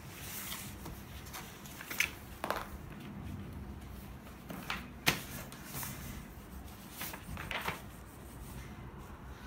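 Paper being handled on a tabletop: sheets and coloring books slid, lifted and turned, in a series of short rustles with a few sharp taps.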